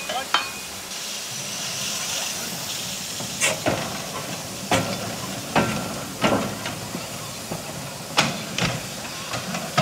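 Narrow-gauge steam locomotive standing with steam hissing steadily while it is turned by hand on a turntable. From about three seconds in comes a string of sharp metallic clanks and knocks, some ringing briefly.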